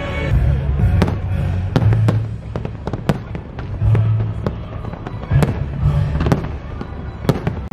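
Aerial fireworks bursting overhead: an irregular run of sharp bangs and cracks, several a second at times, over a low rumble.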